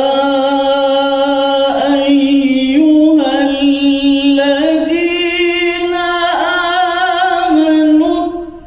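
A male qori reciting the Qur'an in the melodic tilawah style into a microphone: one long held phrase with ornamented turns. The phrase steps up in pitch twice, falls back, and breaks off near the end.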